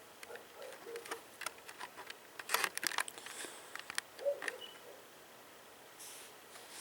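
Light, irregular clicks and taps of fingers handling a small plastic Mobius action camera and pressing its buttons.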